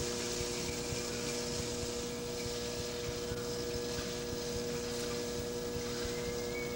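A steady electrical hum of several fixed tones over a constant hiss, with no strokes or changes.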